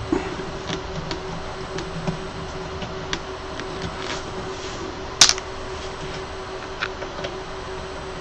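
Small scattered clicks and taps of a screwdriver and screws as the screws holding a resin printer's back panel are removed, with one sharper click about five seconds in, over a steady hum.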